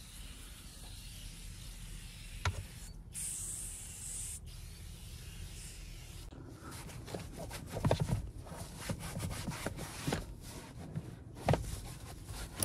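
A click, then a short hiss of aerosol cleaner spray a few seconds in, followed by irregular scrubbing and wiping on car carpet and seat fabric.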